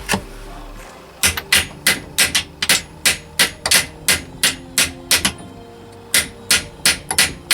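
Hammer tapping on an extended bolt screwed into an M6 thread, driving a part out of a motorcycle engine case like a bearing. One strike, then steady blows about three a second, a pause of under a second, and more blows.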